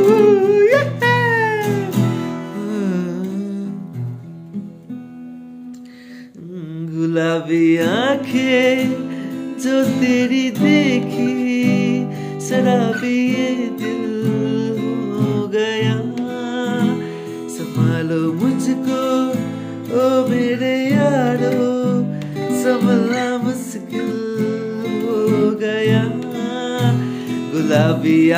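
A man singing a Hindi song over his own acoustic guitar strumming. From about three to six seconds in the voice drops out and the guitar rings on alone. Then the singing comes back on a rising note.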